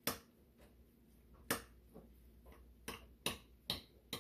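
A utensil clinking against a glass mixing bowl while stirring a thick spinach mixture: about six sharp clinks at uneven intervals.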